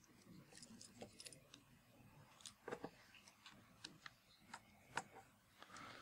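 Near silence broken by a dozen or so faint scattered clicks and knocks from a laptop and its adapter cable being handled and plugged in, the loudest about five seconds in.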